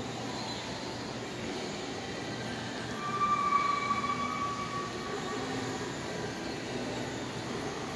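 Steady mechanical drone of a large indoor mall, with a high squeal lasting about two seconds near the middle.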